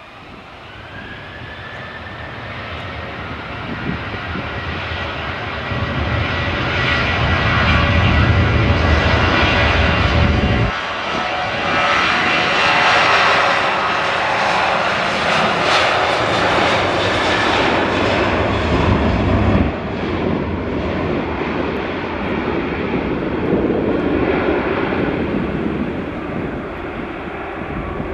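Airliner engines growing louder over the first several seconds, with a steady high whine, then staying loud with a deep rumble underneath.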